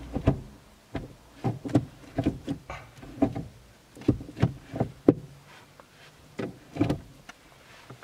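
Manual gear lever of a VW Golf 6 being shifted through the gears, a run of clunks and clicks in several bursts as it moves in and out of each gear, testing that the newly fitted gear knob shifts properly.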